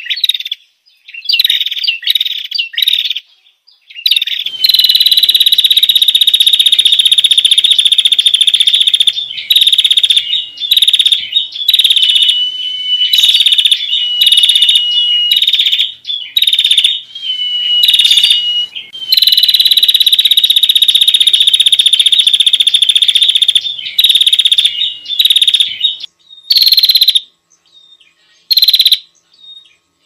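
Prenjak lumut song played as a bird-lure track: loud, high-pitched trills. A few short notes come first, then long unbroken trilling runs of several seconds each, split by short breaks and single notes.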